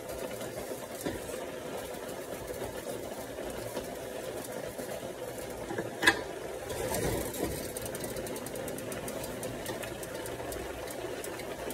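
A steady mechanical hum, with a single sharp click about six seconds in.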